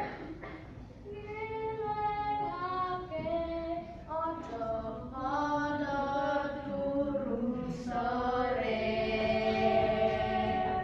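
A small group of schoolchildren singing a song together in unison, holding long notes.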